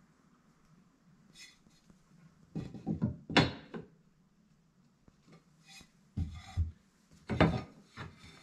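Mosaic tile sheets being handled and pressed onto the wall: a few short bursts of ceramic clatter and rubbing.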